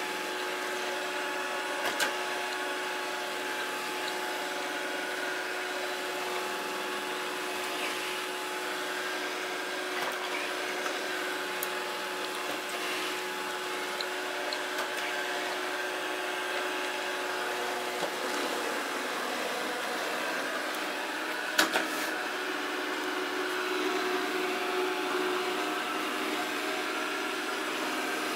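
Samsung SR8751 robot vacuum running steadily in automatic mode, its motor and brushes giving an even hum with a few fixed tones. A sharp knock comes about two seconds in and a quick double knock comes about three quarters of the way through.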